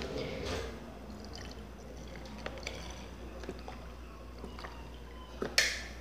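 Milk being poured from a carton, first into a glass bowl and then into a small carton used as the measuring cup, with a faint trickle and small knocks of the cardboard. A brief, sharper noise comes about five and a half seconds in.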